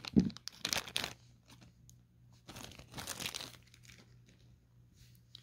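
Thin clear plastic bag crinkling and rustling as it is handled and opened to get a toy figure out, in two spells: one in the first second or so, with a bump near the start, and another around three seconds in.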